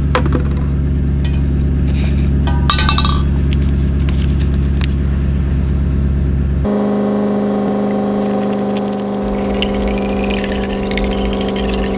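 Vehicle engine running steadily, with a few light clinks about two to three seconds in. The engine's hum changes abruptly about two thirds of the way through.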